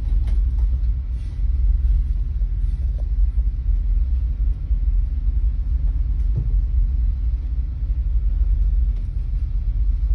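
Steady low rumble of a fast ferry's engines and propellers as the vessel manoeuvres alongside the quay.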